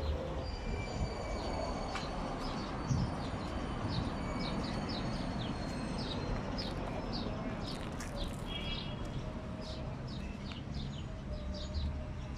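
Small birds chirping over and over in quick, short notes, over a steady low rumble of road traffic.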